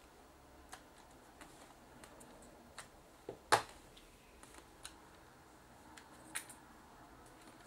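Scattered small plastic clicks and taps from handling a Sony DSC-H10 compact camera as its battery door is opened and the battery released, the loudest click about three and a half seconds in.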